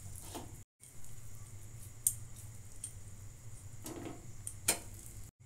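Sticky date filling being rolled into balls by hand and set down on steel plates: a few light taps and clicks of fingers and food against steel over a steady low hum.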